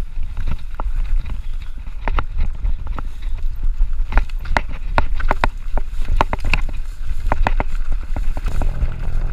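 Mountain bike rolling down a rough singletrack: irregular sharp clicks and knocks from the bike rattling over the bumps, over a steady low rumble of wind on the handlebar camera's microphone.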